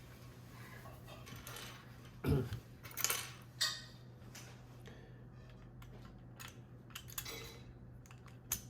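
Keycap puller working a keycap off a Keychron Q3 mechanical keyboard: scattered plastic clicks and scrapes, the loudest about two to four seconds in.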